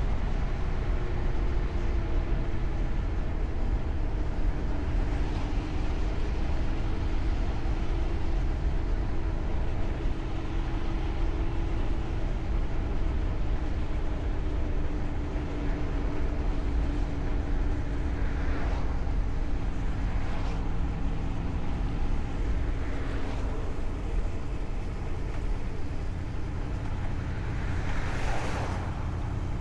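Car driving along a road: a steady road and engine rumble with a held drone that drifts slowly lower. A few brief whooshes pass through it, the loudest near the end.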